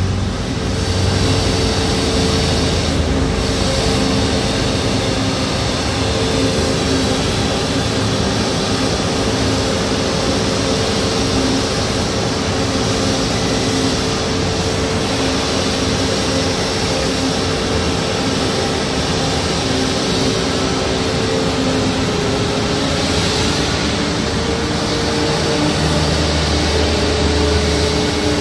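Airbus A320-family airliner's turbofan engines running at idle on the taxiway: a steady jet hiss with a constant whine. A deeper vehicle engine rumble joins near the end.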